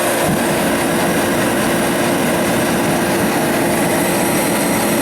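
Sears forced-air torpedo heater running steadily: its blower fan rushes with a steady hum, and the heater seems to be working after its spark plug was refitted and gapped.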